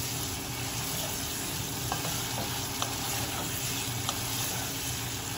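Spiced chicken cubes frying in oil in a pot, sizzling steadily as a wooden spoon stirs them, with a few light taps of the spoon against the pot.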